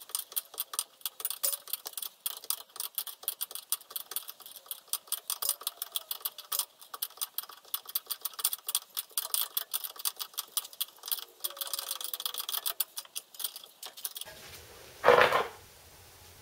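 Ratchet spanner clicking rapidly and unevenly as the front wheel-bearing hub nut is wound on and tightened by hand, with one louder knock near the end.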